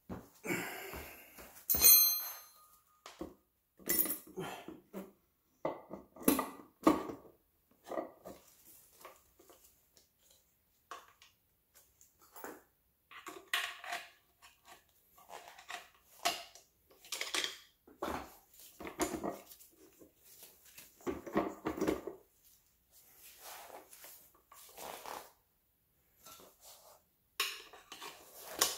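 Steel gear shafts and gears of a Honda PL3 manual transmission clinking and knocking against each other and the aluminium case as the countershaft and mainshaft are worked into place together. The clinks and clunks come irregularly, the loudest a ringing metallic clank about two seconds in.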